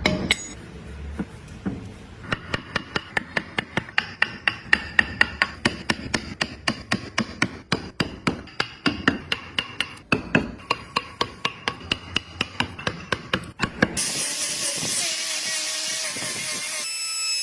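Quick, even hammer taps in woodworking, about four a second, each with a faint ring. Near the end it cuts abruptly to a steady rasping of filing or sanding.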